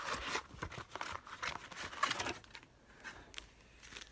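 Crinkling and rustling of trading-card packaging being handled: the blaster box and its foil packs. The handling is busiest for the first couple of seconds, then quieter with a few light clicks.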